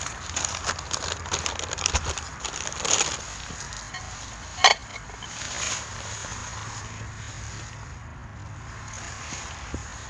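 Paper rustling and crackling as grilled food is handled beside a charcoal shichirin, with one sharp click a little under halfway through.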